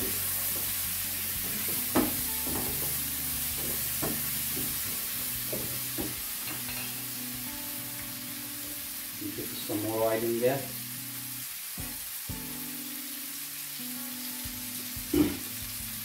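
Cubes of beef tongue with tomatoes and spices sizzling in oil in a nonstick frying pan. A wooden spoon stirs them for the first few seconds, scraping and knocking against the pan, then the steady sizzle goes on alone. One sharp knock comes near the end.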